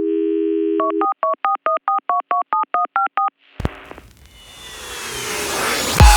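Telephone dial tone for about a second, then about a dozen quick touch-tone (DTMF) key beeps. A click follows about three and a half seconds in, then a rising whoosh that swells into electronic music, with heavy bass hits starting near the end.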